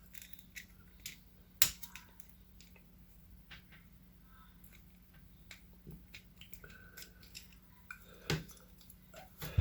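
Small screwdriver prying the retaining clip off a door-lock cylinder: scattered sharp metal clicks and light scrapes, with a louder snap about a second and a half in and another near the end.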